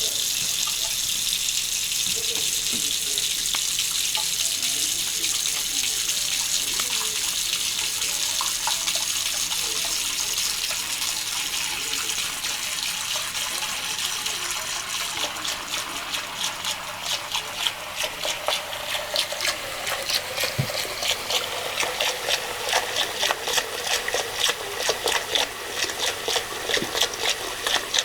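Tap water running steadily into a sink. About halfway through a quick rhythmic splashing joins in, two to three strokes a second, as a cat laps from the running water.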